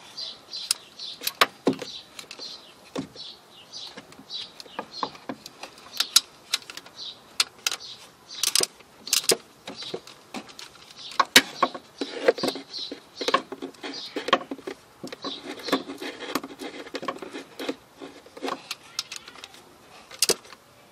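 Socket ratchet snugging the alternator's mounting bolt: irregular sharp metallic clicks throughout, coming thicker and faster in the middle stretch. The bolt is being drawn only snug, so the alternator can still pivot on its tensioning spring.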